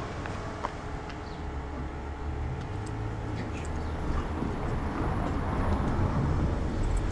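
Road traffic: the low rumble of a car on the street, growing louder toward the end as it comes by.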